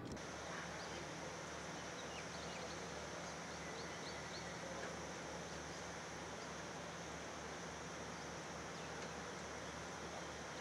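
Steady outdoor background noise with a low, even hum, and a few faint high chirps between about one and three seconds in.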